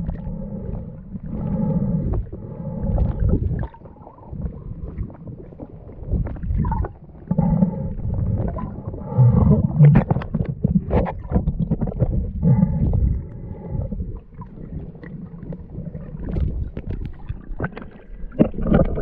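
Muffled underwater sound through a waterproof camera housing: a low rumble of water and handling, broken by several short pitched moans and scattered knocks.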